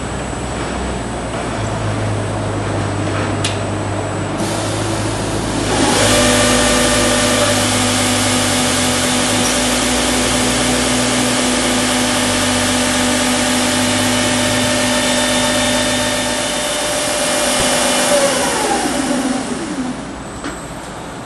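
Machinery of an automatic lumber-package cross-cutting line running with a low hum. About six seconds in, a motor comes up to speed and runs with a steady whine. Near the end it winds down, its pitch falling.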